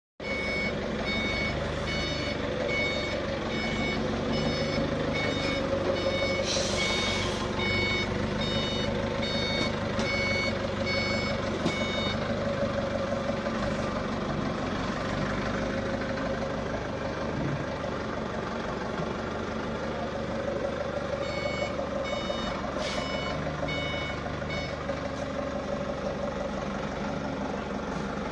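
Electronic beeping repeating at a regular pace for long stretches, stopping about halfway through and returning for a few seconds later, over a continuous steady machinery noise.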